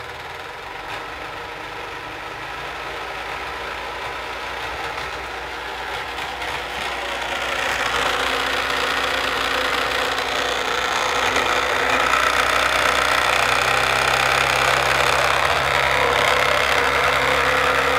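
Magnetic stirrer spinning a magnetic stir bar in a plastic food container of alcohol, the bar rattling against an unsmoothed nub moulded in the container's bottom. It grows louder over about the first eight seconds, then runs steady and loud. The noise comes from that nub not being shaved off.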